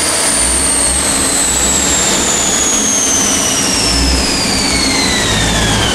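Supercharged Corvette ZR1 coasting down on a chassis dyno after a pull: a high whine falling steadily in pitch as the engine, rear wheel and roller slow, over a low engine rumble.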